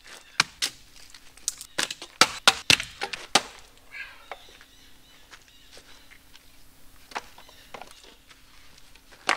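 Axe splitting firewood: a quick run of sharp chops and cracks of wood in the first three seconds or so, then scattered lighter knocks of wood on wood.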